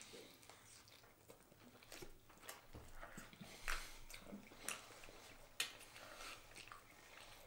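Faint close-up chewing of burger mouthfuls by two people, with scattered soft mouth clicks and smacks.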